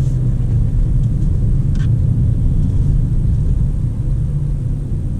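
Chevrolet Onix 1.0's engine and tyre noise heard inside the cabin while cruising at around 40–45 km/h: a steady low rumble.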